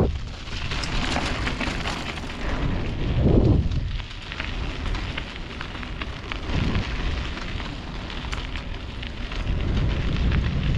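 Wind rumbling and gusting on the microphone of a moving bicycle, with a gust about three seconds in and another near the end, and a scattering of fine crackles on top.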